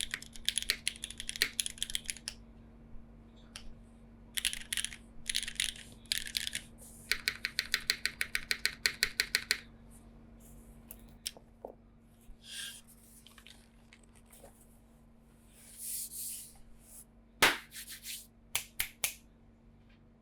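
Typing on a Krush65 mechanical keyboard with lubed Cherry MX2A switches, an aluminum plate and GMK keycaps: quick runs of keystrokes in bursts, thinning out to scattered single presses, with one louder clack near the end.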